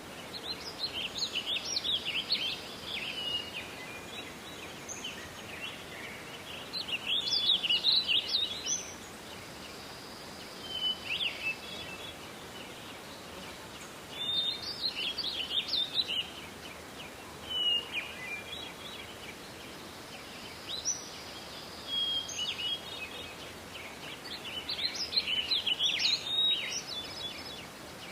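Songbirds singing in a forest: bursts of chirping, twittering song every few seconds over a steady soft hiss of forest ambience.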